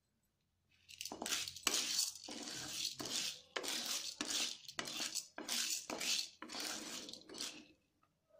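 Unpopped dried popcorn kernels stirred with a wooden spatula in a dark metal wok: about a dozen quick sweeps of hard kernels rattling and scraping across the pan, each about half a second long.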